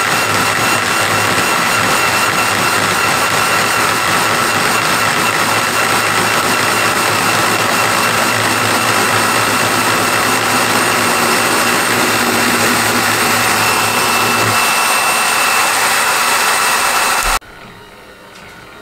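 Milling spindle motor running a gear cutter through a gear blank on a lathe, cutting a tooth of a 68-tooth gear: a steady high whine over machining noise. A lower hum drops out about three-quarters of the way through, and the sound cuts off suddenly near the end.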